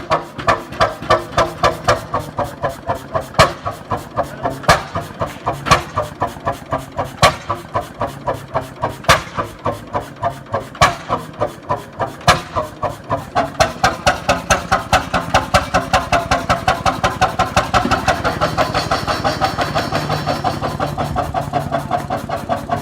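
Old engine just started from cold, running with slow, even beats that gradually quicken and settle into a steadier run. A louder bang stands out every second or so among the beats early on.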